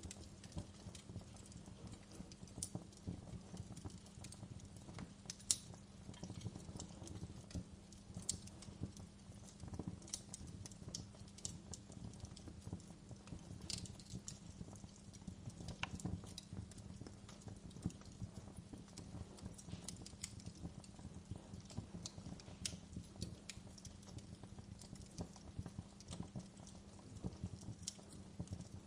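Wood fire crackling: irregular sharp pops and snaps, the loudest about five and a half seconds in, over a steady low rumble.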